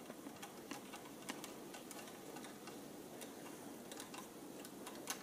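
Faint, irregular small ticks and clicks as a hex driver turns out a small screw from the plastic front shock mount of a Traxxas Rustler RC truck.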